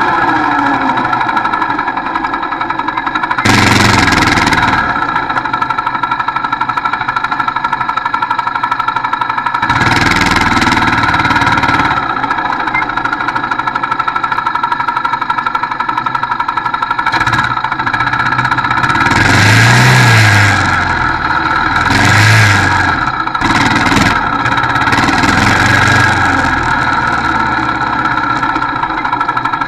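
Quad bike engine running under way, heard from on board as a steady drone with a whine, surging louder five times as the rider accelerates or the wind rushes past.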